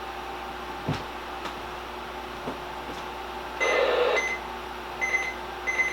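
Midland 74-200 weather radio beeping: a short burst of hiss with a high tone about three and a half seconds in, then three short high electronic beeps. A few light clicks come earlier.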